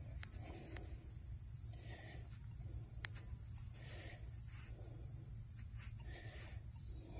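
Steady high-pitched insect chorus of summer crickets, with faint soft rustles and a few light clicks.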